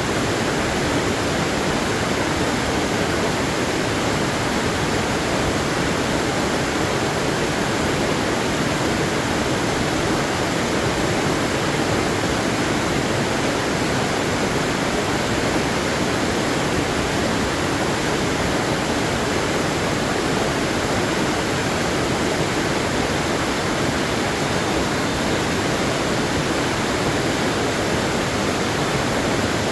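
Steady, unbroken rush of falling water from a waterfall, even in level throughout.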